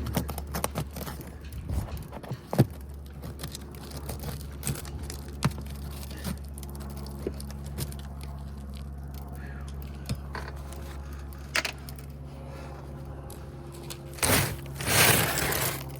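Hand tools working nails out of old, brittle asphalt roof shingles: scattered metal clicks and clinks, one sharp click a few seconds in, and a louder scraping rush near the end, over a steady low hum.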